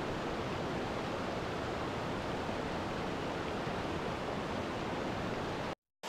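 Steady rushing water of a waterfall: an even hiss with no separate splashes, cutting off abruptly to dead silence just before the end.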